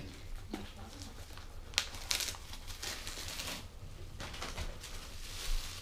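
Packaging of a boxed water bottle being opened and handled: irregular rustling and crinkling, with a sharp click a little before two seconds in.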